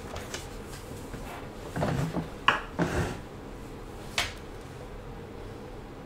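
Handling noise: a few short knocks and clicks, bunched together about two to three seconds in, then one sharp click about four seconds in.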